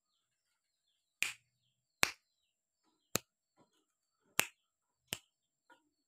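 Javan myna (jalak kebo) giving a series of sharp, loud clicks, five of them roughly a second apart, with fainter chirps between.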